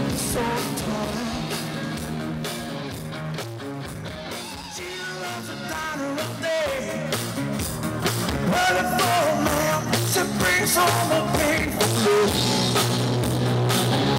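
Live rock band playing, with drums, guitar and a singing voice; it eases off briefly and then builds back up.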